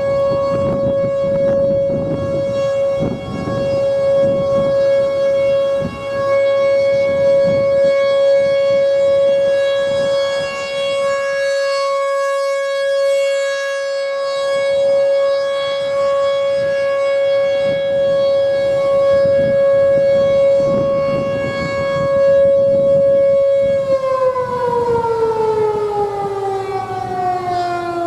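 T-128 outdoor warning siren sounding a steady tone on its routine test, the level swelling and fading gently. Near the end it begins to wind down, its pitch falling.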